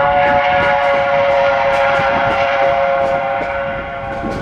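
A locomotive horn sounds one long, steady multi-note blast, tapering off near the end. It is heard from a car of the moving train, over the rumble and faint clicking of the wheels on the rails.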